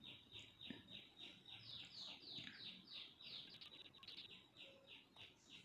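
Pencil scratching on a paper pattern in quick back-and-forth strokes, about three a second, as a traced neck-design outline is gone over to darken it. Faint.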